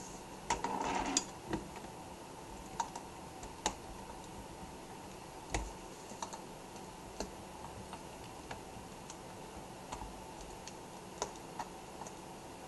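Light, scattered clicks and taps of a small screwdriver working screws into a laptop's plastic screen assembly, about a dozen isolated ticks, with a short burst of handling noise about half a second to a second in.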